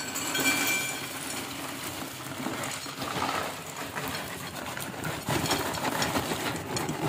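Roasted, skinned peanut halves pouring out of a tipped cardboard box onto a ceramic plate: a continuous rattle of many small, hard pieces hitting the plate, each other and the cardboard.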